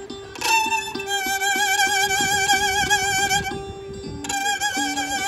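Live blues band playing: a violin holds a long note with vibrato over a repeating guitar riff. The violin breaks off briefly at about four seconds in and takes the note up again.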